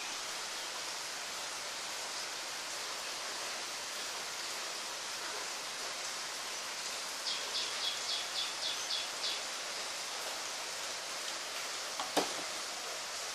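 Steady hiss throughout, with a run of about eight short, high chirps a few seconds in, about four a second, like a small animal calling. A single sharp knock comes near the end.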